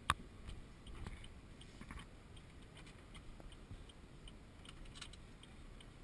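Handling noise from a dash-mounted action camera being turned and set back inside a moving car: a sharp knock at the start, then a few softer knocks and rubbing over low road rumble. Faint even ticking runs underneath at about two ticks a second.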